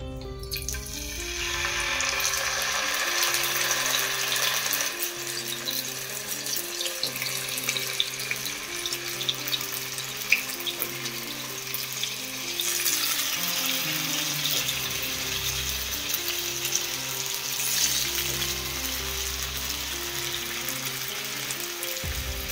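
Masala-coated sheri fish steaks sizzling and crackling in hot oil in a frying pan. The sizzle starts about half a second in as the first piece goes into the oil, with a few sharper pops along the way.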